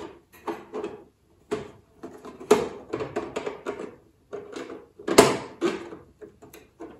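Plastic model-kit deck parts being pressed and pushed into place on a plastic ship hull: irregular clicks, knocks and short rubbing sounds of plastic against plastic, the sharpest knocks about two and a half and five seconds in.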